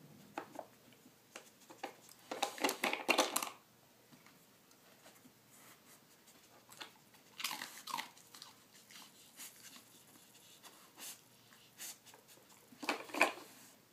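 A Belgian Tervuren working a plastic Nina Ottosson treat puzzle, nosing its pieces and crunching the treats she finds. There are three short bursts of clattering and crunching: a couple of seconds in, about halfway, and near the end. Faint scattered clicks come between them.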